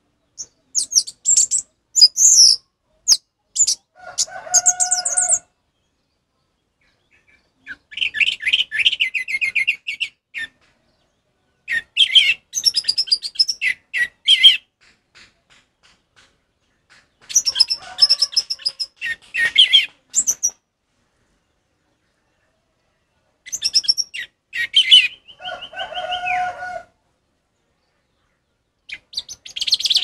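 Orange-headed thrush singing a full, open 'ngeplong' song: about five phrases of rapid, varied whistles and trills, each two to four seconds long, separated by pauses of one to three seconds, with a new phrase starting near the end.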